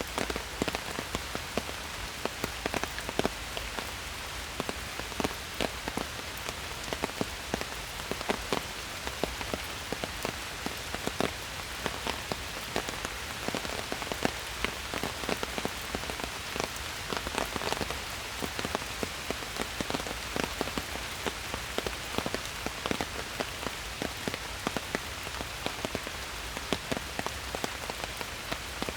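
Steady rain falling in a forest, a continuous hiss with many sharp individual drop taps scattered throughout.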